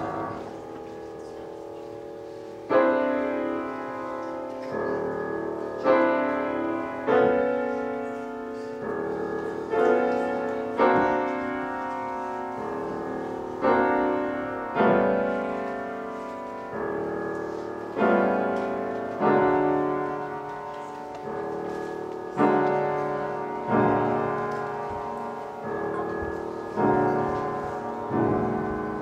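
Grand piano played solo: loud accented chords struck roughly once a second, each dying away, with quieter notes between them.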